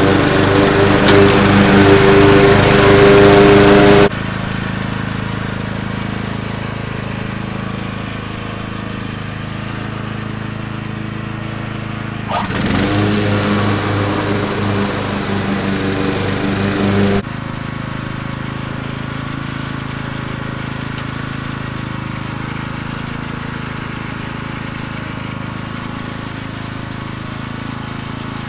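Troy-Bilt riding lawn mower engine running steadily while mowing, loud and close at first, then fainter after about four seconds; it swells again with a brief change in pitch near the middle and drops back, the level changing abruptly each time.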